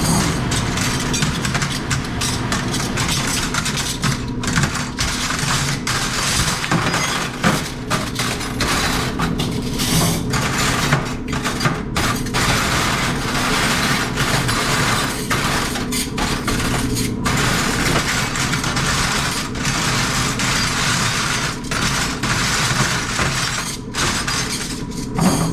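Metal silverware clattering and clinking almost without pause as spoons and forks are handled and sorted, over a steady low machine hum.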